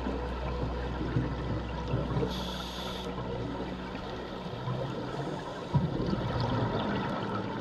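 Underwater sound picked up through a camera housing during a scuba dive: a steady low rushing of water. About two and a half seconds in comes a short hiss of a diver breathing in through a scuba regulator. Near six seconds there is a single knock, and the low hum drops away.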